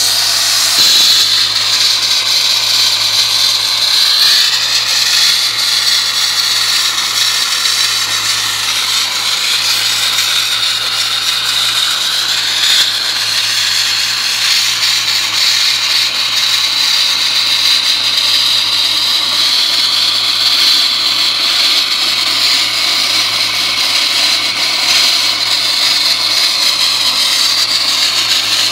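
Wet-blasting nozzle spraying a water-and-sand mix at about 90 psi against a Jeep CJ6's steel body panel, stripping the old paint with a loud, steady hiss. A steady low hum runs underneath.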